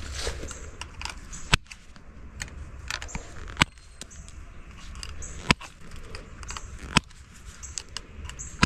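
Compact bolt cutters snipping steel woven-wire fence: four sharp snaps, about one every one and a half to two seconds, with light clicking and rattling of the wire between cuts.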